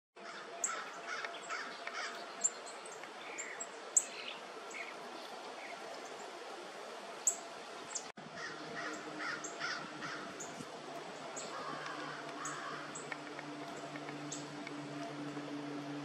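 Wild birds calling: repeated mid-pitched calls and short high chips, with a steady low hum setting in about halfway.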